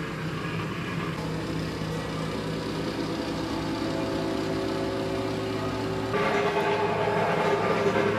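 Engines of heavy asphalt-paving machinery running next door, a steady mechanical drone. About six seconds in it gets louder as a higher engine note joins.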